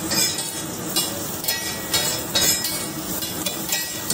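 A metal spatula scraping and chopping egg-and-chicken bhurji on a flat griddle (tawa), with sharp clacks about once a second over a steady sizzle of frying.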